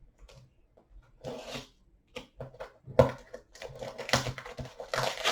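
Packing tape and cardboard being picked at and torn off a shipping box by hand, in irregular scraping, rustling bursts with a sharp snap about three seconds in.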